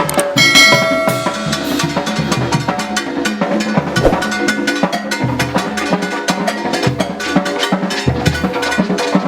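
Oaxacan brass band playing a fast muerteada carnival rhythm, with drums, congas and wood-block-like clacks driving a dense steady beat. Held brass notes sound in the first second or so, then the percussion carries on.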